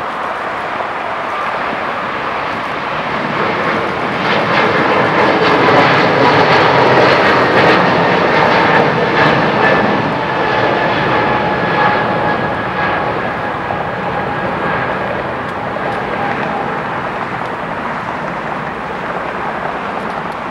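Boeing 777-200ER's twin turbofan engines at takeoff thrust as the airliner lifts off and climbs away: jet noise that swells about four seconds in, peaks, then slowly fades. Through the middle a whine rides on top, sliding slightly down in pitch as the plane passes.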